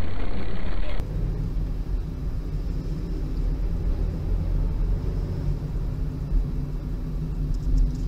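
Steady low rumble of a car's engine and tyres heard from inside the moving car. A louder, hissier stretch of road and wind noise cuts off abruptly about a second in.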